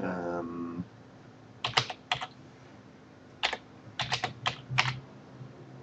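Keystrokes on a computer keyboard: about ten sharp clicks in small quick clusters with pauses between, as a device path is typed.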